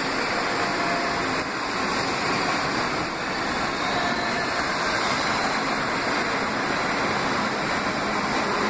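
New York City Subway 2 train of R62-series cars running fast along the platform, a steady rushing noise of wheels on rails and cars moving through the air.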